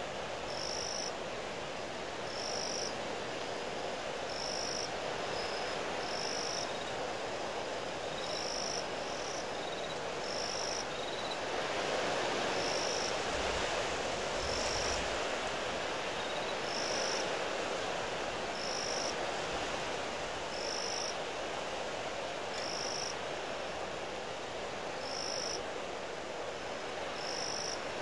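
Strong wind blowing steadily in a duststorm, swelling into a stronger gust about halfway through with low buffeting on the microphone. Over it a short, high-pitched chirp repeats about every two seconds, with fainter chirps in between.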